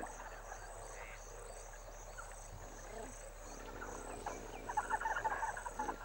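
Wetland ambience: insects calling in a steady, evenly pulsing high chorus. Near the end comes a quick run of chattering animal calls.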